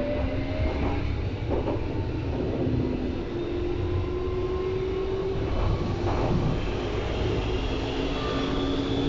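Berlin U-Bahn car running between stations, heard from inside: a steady rumble of wheels on the rails, with a faint whine from the motors that rises slowly in pitch.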